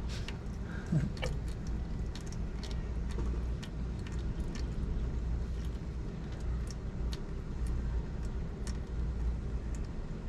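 Oil dripping from the removed oil filter's mount into a drain pan: faint, irregular ticks over a steady low background rumble.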